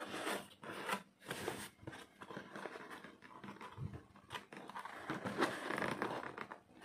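Scissors cutting the packing tape on a cardboard shipping box, with the box scraping and rustling as it is handled and turned, in a run of irregular scrapes and rustles.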